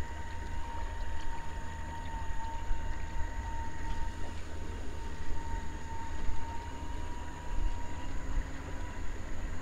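Electric trolling motor on a bass boat running at low speed: a steady high whine over a continuous low rumble.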